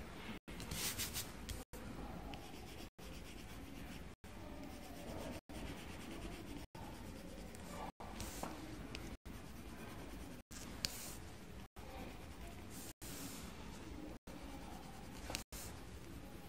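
Coloured pencil scratching on paper as a drawing is shaded in. The sound drops out briefly about every second and a quarter.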